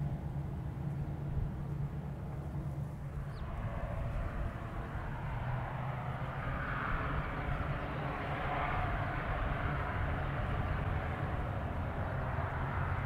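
Aircraft engines running: a steady low hum, joined about three or four seconds in by a broad rushing noise that swells and then holds.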